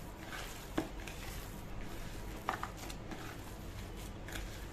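Hands squeezing and kneading a ground chicken, cheese and breadcrumb mixture in a plastic bowl: soft squishing with a few light clicks against the bowl.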